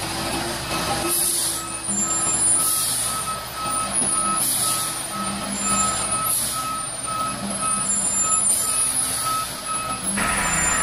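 Loaded heavy log truck backing up: its reversal alarm beeps steadily, about two to three beeps a second, starting about two seconds in, over the diesel engine running. Short hissing bursts come every couple of seconds.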